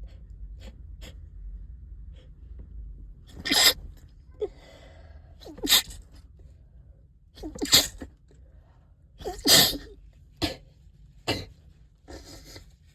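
A stuffed-up person sneezing over and over: four loud sneezes about two seconds apart, then two shorter, sharper ones, some of them stifled.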